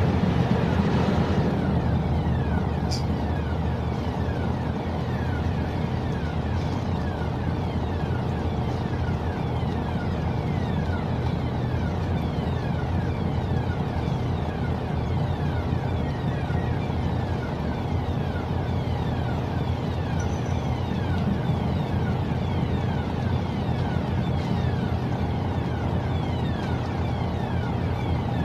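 Steady low drone of ship diesel engines as a container ship and its tug manoeuvre in to dock, with a faint tick about three seconds in.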